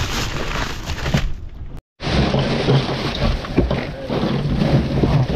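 Plastic bags of ice crinkling and ice cubes rattling as fish are packed into an esky to make an ice slurry, with wind on the microphone and a steady low hum underneath. The sound cuts out completely for a moment about two seconds in.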